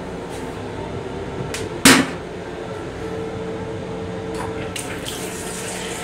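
Sensor-operated faucet of a commuter train restroom sink running water near the end, over steady train running noise. A sharp knock about two seconds in is the loudest sound, and a steady hum starts about a second later.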